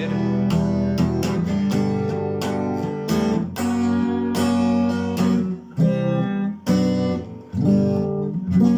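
Acoustic guitar strumming chords in a steady rhythm, with a few short breaks where the chords are cut off.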